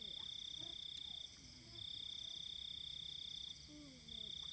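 Night insect chorus: a cricket trilling at one steady high pitch in bouts of one to two seconds, broken twice by short pauses, over a fainter steady high drone of other insects.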